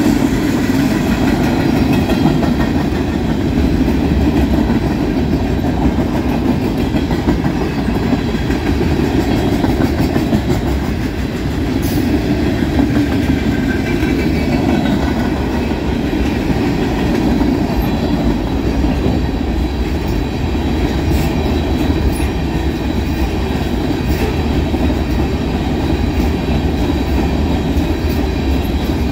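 Freight cars of a long manifest train, tank cars and covered hoppers, rolling steadily past. Their wheels make a continuous rumble on the rails, with occasional sharp clacks.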